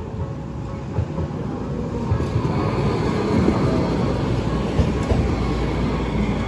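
Small electric train rolling through a level crossing at close range, a low rumble that grows louder about two seconds in, with a few sharp clacks of the wheels over the rail joints. The crossing's warning bell keeps ringing underneath.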